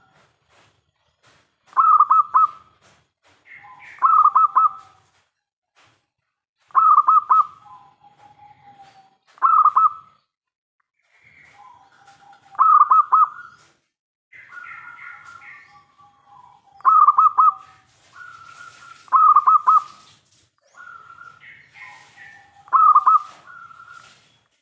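Zebra doves (local perkutut) cooing. Each loud phrase is a quick run of rolling notes followed by a lower, drawn-out coo, and the phrases repeat every two to four seconds. Softer, higher calls come between the phrases.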